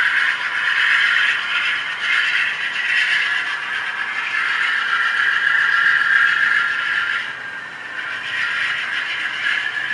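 Wheels of a long train of HO-scale hopper cars rolling on model track: a steady, high-pitched rolling rattle that wavers in strength and dips for a moment about seven and a half seconds in.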